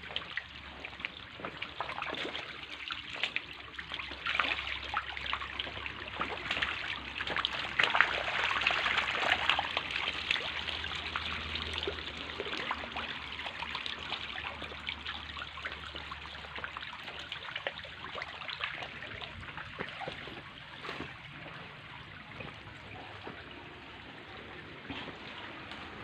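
Water trickling and splashing as a fish pond is drained, loudest about a third of the way in.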